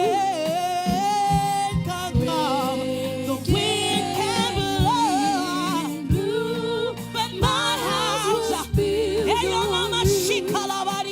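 Gospel choir worship song: wavering sung vocal lines over instrumental backing with a regular low drum beat.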